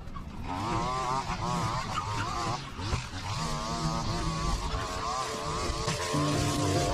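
String trimmer running and cutting long grass, its whine wavering up and down in pitch as the head swings through the grass.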